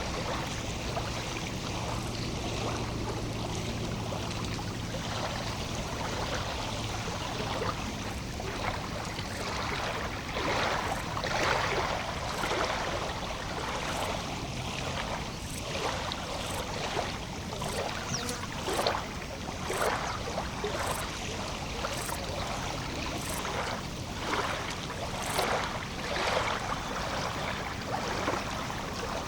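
Lake water lapping at the shore, small irregular splashes over a steady wash, the splashes coming more often from about a third of the way in. A low steady hum sits underneath for the first several seconds.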